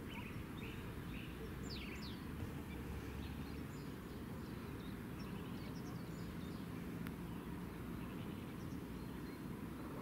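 Faint bird chirps over a steady low outdoor rumble. There is a run of four short notes in the first second or so, then two quick sweeping notes. Scattered faint chirps follow, with a single click about seven seconds in.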